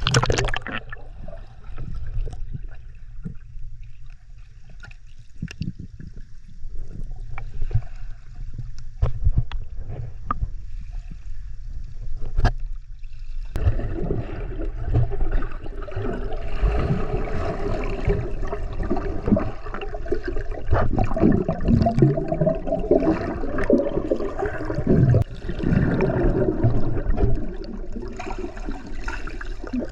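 Low rumble with scattered knocks and clicks, then about halfway a sudden change to a dense, steady run of gurgling, splashing water.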